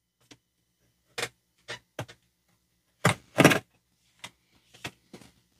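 Scattered knocks, clicks and short scrapes of a large cardboard box being handled as it is opened, the loudest pair a little after three seconds in.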